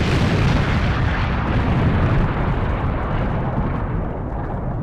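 Edited-in explosion sound effect: a heavy, rumbling blast whose hiss slowly dies away, leaving the low rumble.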